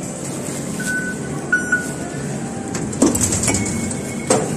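Steady rumble of a moving vehicle, with a few short beeps and a couple of sharp clicks.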